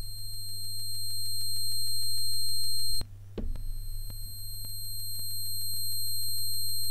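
Syntorial software synthesizer sounding a held note in its top octave: a thin, high, piercing tone that swells up over about three seconds, cuts off suddenly, then sounds again and swells once more. The target patch and then a copy of it are played with the filter cutoff fully open, which brings out the high resonance squeal.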